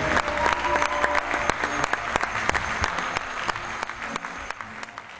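Theatre audience applauding, the clapping growing steadily fainter. A few notes of music linger in the first second.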